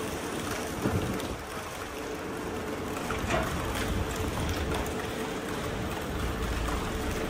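Steady rushing outdoor noise at a dam gate, with a constant machine hum and a low rumble underneath and a few faint knocks.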